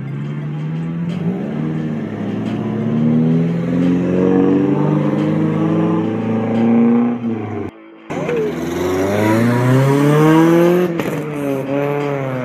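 Car engines revving as cars pull away, the pitch climbing in steps and dropping back. The sound breaks off sharply about eight seconds in, and another engine then climbs hard through its revs and dips once near the end.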